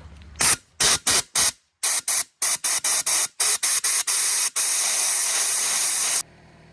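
Compressed air from an air blow gun blasting into the drained pressure-washer pump to clean it out: a string of short hissing bursts, then one long blast that cuts off suddenly.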